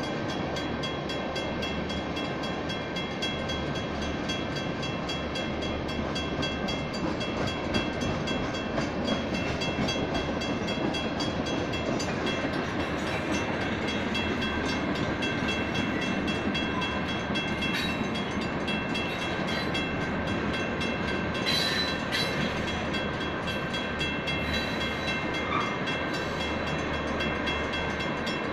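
Freight train of tank cars rolling through a grade crossing, wheels rumbling steadily on the rails. Over it, the crossing's WCH mechanical bells ring with rapid, even strokes. There are a few sharp metallic clanks about 18 and 22 seconds in.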